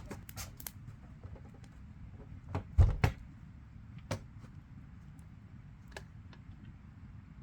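Scattered sharp clicks and knocks, with one heavier knock and click about three seconds in.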